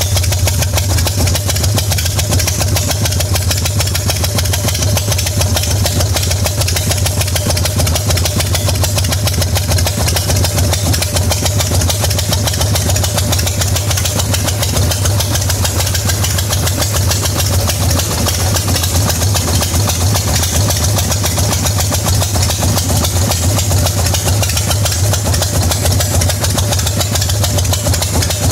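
Harley-Davidson Shovelhead V-twin engine idling steadily.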